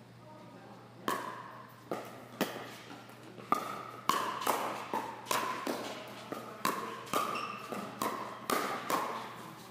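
Pickleball rally: hollow plastic ball popping off paddles and bouncing on the court, a quick string of sharp hits about two a second starting about a second in.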